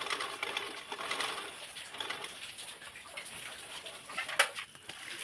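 A well's rope pulley creaking and the rope running over it as a bucket of water is hauled up hand over hand. A sharp knock comes about four seconds in.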